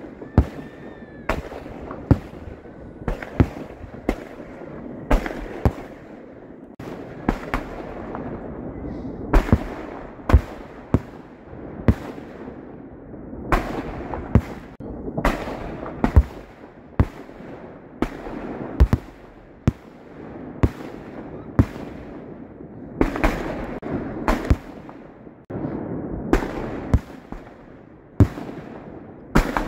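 Aerial fireworks display: shells bursting one after another in sharp, irregular bangs, about one or two a second, over a continuous noisy din between the bursts.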